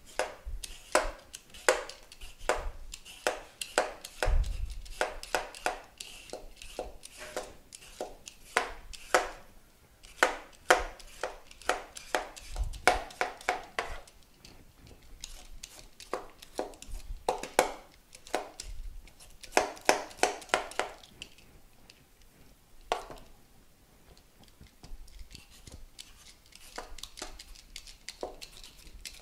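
Hand vegetable peeler scraping the skin off a chayote squash, in runs of quick short strokes, several a second, with brief pauses between. A couple of dull knocks sound about four and thirteen seconds in.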